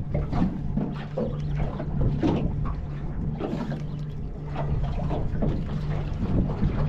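Small fishing boat at sea: a steady low hum from the outboard motor idling, with water slapping against the hull and wind on the microphone.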